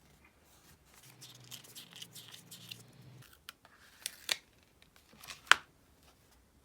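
Sticker paper being handled: about two seconds of quick crisp rustling strokes, then two sharp taps near the end, the second the loudest.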